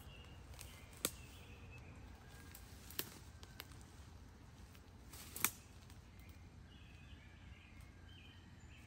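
Sharp snaps of twigs and brush underfoot, three times, about one, three and five and a half seconds in, the last the loudest, as someone walks through dense undergrowth. Faint bird calls come near the start and again near the end.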